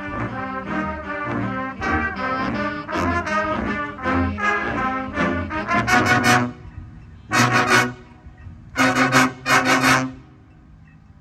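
Marching band brass and woodwinds playing together, the music breaking into a string of loud, short chords with pauses between them and then stopping about ten seconds in.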